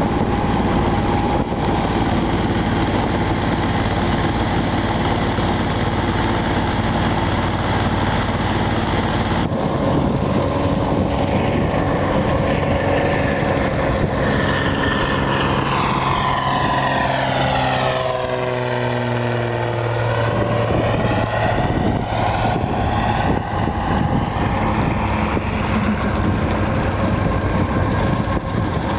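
Outboard motor of a freighter canoe running steadily under way. About halfway through, a floatplane passes low overhead, and its drone sweeps down in pitch and then back up as it goes by.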